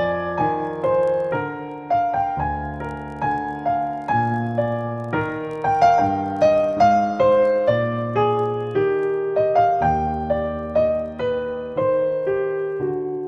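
Background piano music: a slow melody of single struck notes that fade away, over low bass notes that change about every two seconds.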